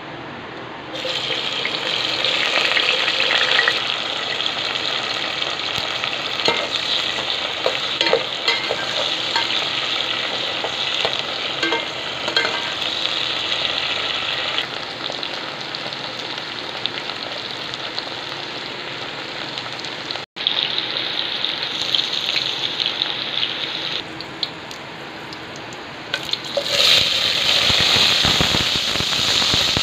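Cut okra sizzling in hot oil in a metal pot. The sizzle starts about a second in as the okra goes in, eases off midway, and flares up again near the end as more okra is tipped in from a plate, with the metal slotted spoon clicking against the pot as it is stirred.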